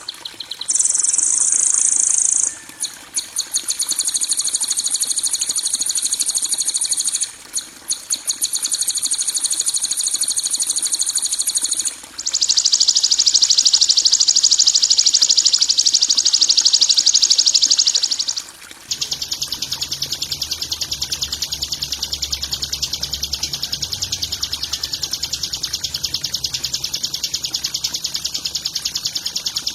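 Bird-training (masteran) recording of harsh, high-pitched rapid trills and buzzes. Several different trills follow one another, each lasting a few seconds and switching abruptly, and a faint low hum runs under the last and longest one.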